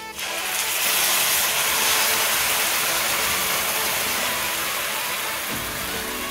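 Blended raw tomatoes poured into a hot pot of fried tripe, onions and spices, sizzling. The sizzle sets in a fraction of a second in and slowly dies down.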